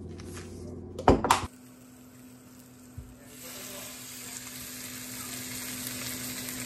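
Chicken thighs frying in a pan: a steady sizzle sets in about halfway through and slowly grows louder. A brief loud clatter comes about a second in.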